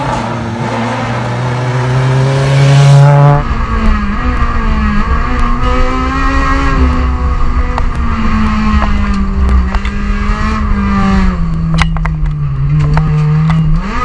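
Rally car engines at full throttle: first one engine note rising steadily, then, after a cut about three and a half seconds in, a rally car engine heard from inside its cabin, its pitch wandering and slowly sagging through corners before climbing again near the end. A few sharp clicks come near the end.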